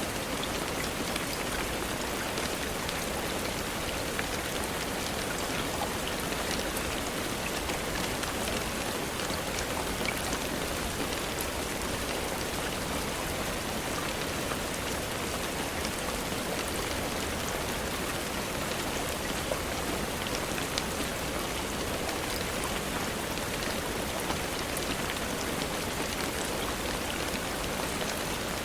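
Steady rainfall, an even hiss with scattered small ticks of drops.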